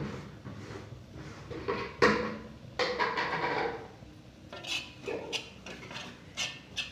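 A metal spoon knocking and scraping in a cooking pan while stirring, with a few short, light metallic clinks in the second half.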